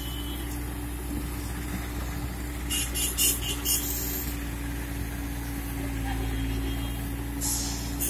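Bobcat skid-steer loader's diesel engine running steadily while it works a backhoe attachment, with a few short, high hissing noises about three seconds in and again near the end.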